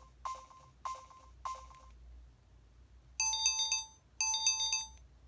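EV-W250 'Black Cube' mobile phone playing one of its built-in electronic alert tones. It starts with a quick run of short beeps about half a second apart, then two longer, bright chiming chords about a second apart.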